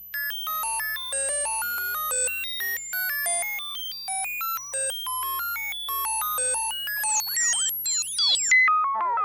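Synthesized high-pitched electronic sound effect: a rapid string of short beeps hopping at random between pitches. From about seven seconds in it turns into overlapping tones gliding downward. A faint steady low hum runs underneath.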